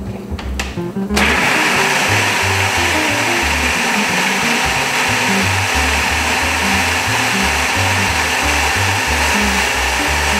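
An electric food processor switches on about a second in and then runs steadily, its blade blending chopped raw cauliflower into a creamy purée. Background music plays underneath.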